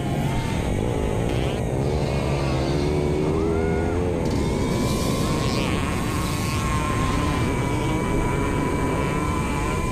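Quadcopter drone's electric motors and propellers whining steadily, heard from the camera it carries, the tone drifting slowly in pitch. Motorcycle engines rise and fall in pitch beneath it in the first few seconds.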